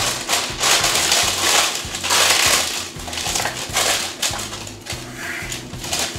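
Wax paper crinkling and rustling in irregular bursts as it is pressed and folded into the corners of a square baking pan.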